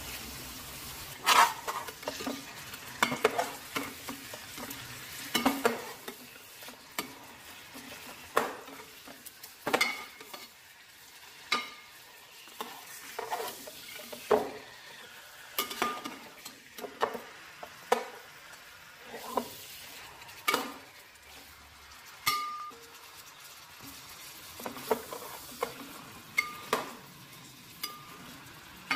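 Pieces of mutton frying in hot oil with browned onions, sizzling steadily, while a perforated steel skimmer scrapes and clinks against the metal pot about once a second as the meat is turned.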